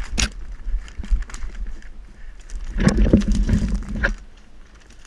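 Footsteps and rustling of brush and gear as a player moves through undergrowth, with scattered knocks and a louder burst of crashing rustle about three seconds in.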